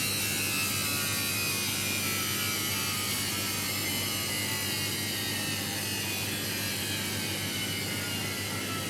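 Samsung front-load washing machine's drum motor running at the end of the cycle: a steady low hum under a high whine that slowly falls in pitch, as the spin winds down.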